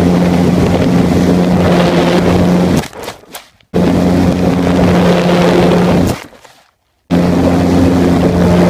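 Small RC airplane's electric motor and propeller running with a steady hum and heavy rushing noise, heard close from the onboard phone. It comes in three long runs, starting abruptly and spinning down: one about three seconds in, one around six seconds, and one near the end.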